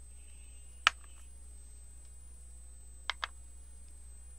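Gel polish bottles set down one at a time on a hard work surface: one sharp click about a second in, then a quick pair of clicks near the three-second mark.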